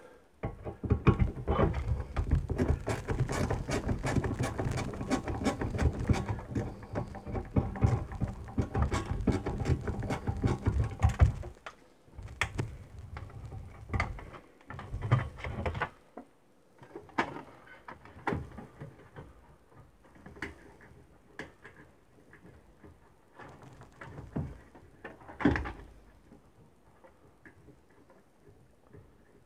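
Screwdriver work and handling of a microwave magnetron's metal and plastic parts: about eleven seconds of rapid clicking and scraping, then scattered light clicks and knocks.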